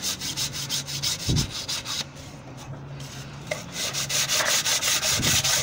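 Sandpaper rubbed by hand in quick back-and-forth strokes over the cast-iron gasket face of a Morris Minor cylinder head, cleaning the mating surface for a new head gasket. The scratching eases off about two seconds in and picks up again a second or so later.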